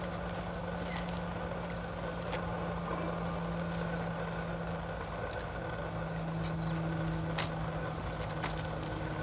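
Outdoor ambience: a steady low hum with scattered light clicks and taps, and a faint higher tone that comes in about halfway through.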